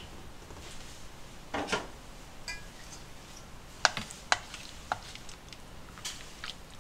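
Stainless steel pot lid lifted and set aside, then a metal ladle dipping into soup and clinking sharply against the pot's rim several times.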